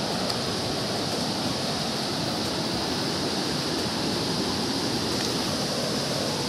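Steady rush of a fast-flowing, swollen muddy river in spate, running over rapids.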